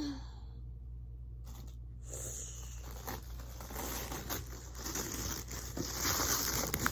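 Wrapping paper crinkling and tearing as a gift is unwrapped. The crackle starts about two seconds in and grows louder near the end.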